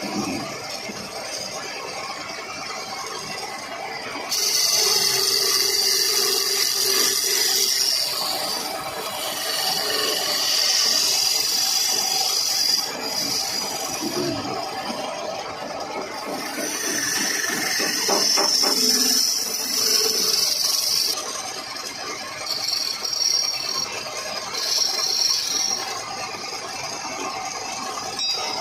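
Wood lathe running while a chisel cuts into the spinning wood, giving a harsh hissing scrape in several passes of a few seconds each, with the motor's steady hum between them.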